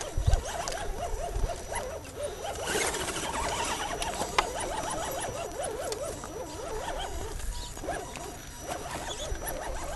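Dogs whining and yelping in wavering, rapidly bending pitches, with a few low thumps on the microphone near the start.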